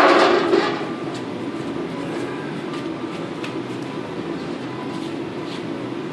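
The tail of a loud bang dies away in the first second, then a steady low rumble of background noise with a few faint ticks.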